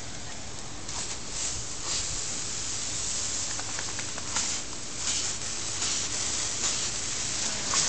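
Pop-up lawn sprinkler head hissing as it sprays a jet of water, with several brief louder spurts of spray as a boxer dog snaps its mouth into the jet.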